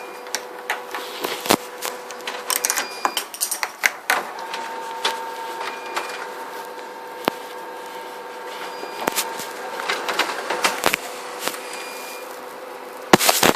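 Slime being worked by hand, giving irregular sticky clicks and crackles, with a denser burst of clicking near the end. A faint steady hum lies underneath.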